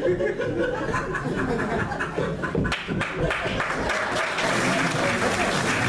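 Audience applauding, the clapping building from about halfway in and growing denser toward the end.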